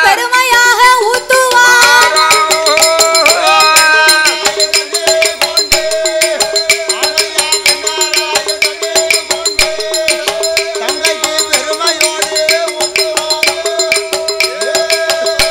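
Villupattu ensemble playing an instrumental passage. A sustained melody instrument moves through quick notes for the first few seconds, then holds two steady notes over fast, continuous rattling and clicking percussion.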